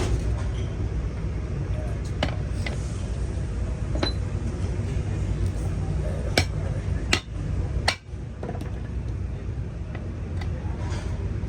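A handful of sharp metal clinks and taps from tools striking metal, several close together past the middle, over a steady low rumble.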